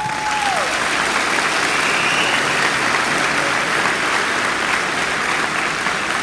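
Audience applauding steadily, with a short whoop right at the start.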